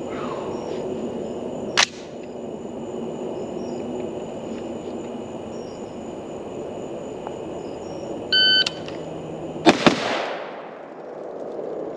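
Shot timer start beep, then about a second and a half later two AR-15 rifle shots fired a fraction of a second apart, the second trailing off in a long echo. Earlier there is a single sharp click, over a steady chirring of night insects.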